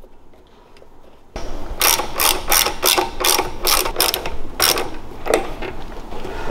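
Ratchet wrench with a 3/16-inch hex bit clicking in quick back-and-forth strokes, about three clicks a second, starting about a second and a half in, as the Allen bolts of the brake caliper clamp on the mini bike's front fork are tightened.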